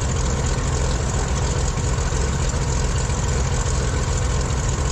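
Cessna T310R's turbocharged six-cylinder piston engines and propellers idling steadily at about 800 RPM, a low, rapidly pulsing rumble. This is the idle cool-down that lets the hot turbochargers cool before the engines are shut down.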